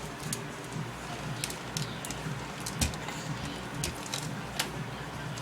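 Light scattered clicks and knocks of small items being handled in and pulled from a refrigerator by a toddler, with one sharper knock about halfway through.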